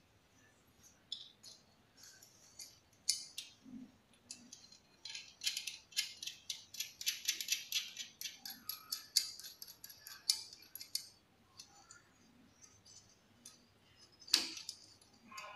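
Small metallic clicks and rattles as a nut is turned by hand onto a dynabolt sleeve anchor holding a steel plate. A dense run of quick clicks comes in the middle, and one sharper click near the end.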